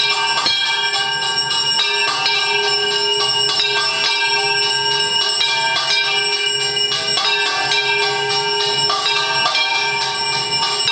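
Temple bells rung rapidly and without pause for a Hindu evening arati, with jingling metal percussion over the top.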